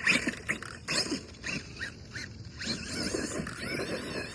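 Brushless electric RC car motor on a 3-cell LiPo whining in short throttle bursts, then a longer whine that rises and falls near the end.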